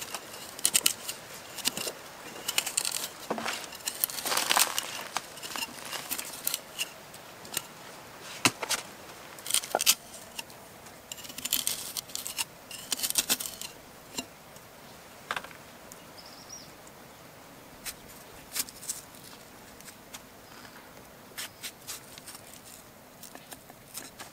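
A kitchen knife cutting fruit and vegetables held in the hand, with pieces dropping onto leaves in a clay pot: a run of crisp scrapes, snicks and rustles that thins out to occasional clicks after about 14 seconds.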